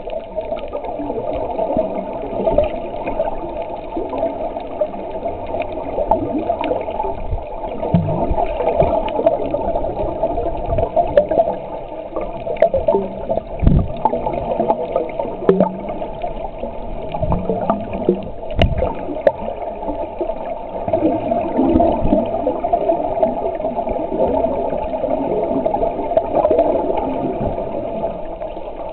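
Muffled sloshing and bubbling of sea water heard through an underwater camera just below the surface, a steady churning with a few soft knocks.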